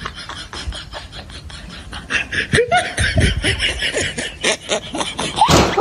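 A person laughing: a quick run of snickering, giggling breaths that grows louder about two seconds in.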